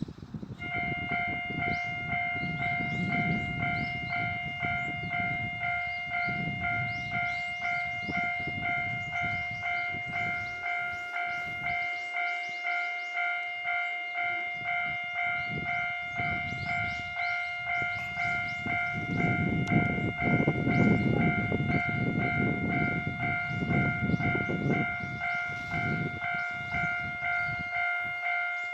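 Japanese railway level-crossing warning bell ringing in a steady, even repeating pulse, starting about half a second in and running on. A low rumble swells under it, loudest about two-thirds of the way through, as a train passes over the crossing.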